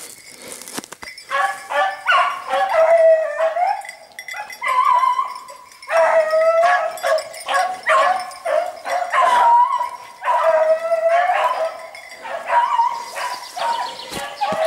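Beagles baying in a chorus of repeated, overlapping calls, some short and some drawn out, starting about a second in. This is the hounds giving tongue while they chase a hare.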